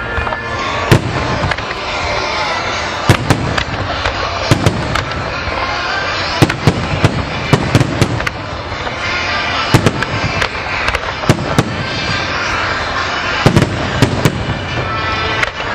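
Fireworks display: aerial shells bursting with many sharp bangs at irregular intervals, often in quick pairs, over a continuous crackling rumble.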